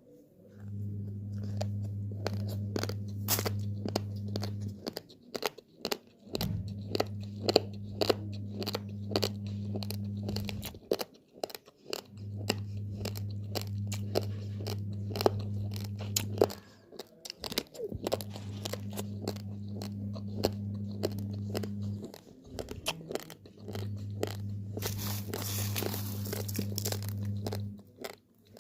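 Raw, uncooked basmati rice grains being chewed: many sharp, irregular crunches. Underneath runs a low hum that cuts out and comes back about every six seconds.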